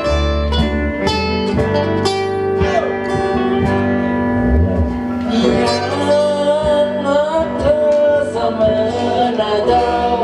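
Live band music: a plucked string instrument picks out quick notes, and about halfway in a singer's voice comes in over it with a wavering, ornamented melody.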